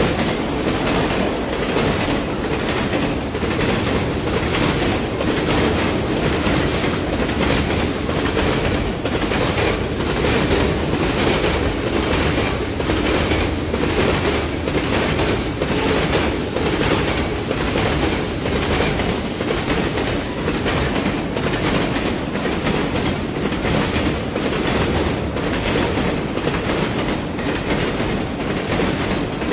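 Diesel train running along the track: a steady rumble with an even clickety-clack of wheels over rail joints.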